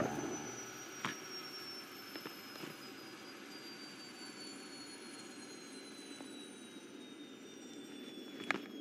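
Animated sci-fi film sound effects: a steady low rumbling hum with a faint high whine that slowly falls in pitch. Two short sharp clicks sound, one about a second in and one near the end.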